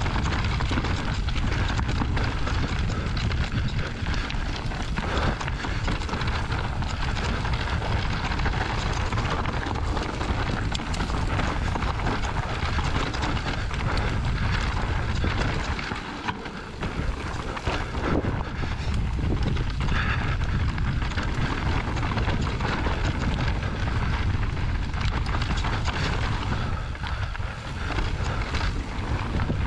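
Wind rushing over the camera microphone while a Trek Rail electric mountain bike rides down a rocky dirt trail, its tyres crunching over stones and the bike rattling with frequent small knocks from bumps. The wind rush eases briefly about halfway through.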